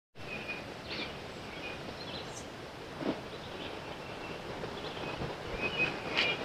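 Outdoor ambience: a steady background noise with short, high bird chirps now and then and a couple of faint knocks.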